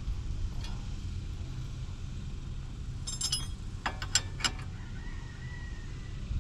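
Metal clinks of a wrench against the castle nut of a new steering tie rod end about three seconds in, then a quick run of sharp metallic clicks as the wrench is fitted and turned on the nut, over a steady low rumble.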